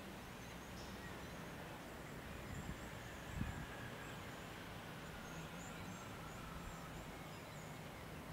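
Quiet outdoor ambience at a railway platform: faint high bird chirps over a low steady hum, with a single soft thump about three and a half seconds in.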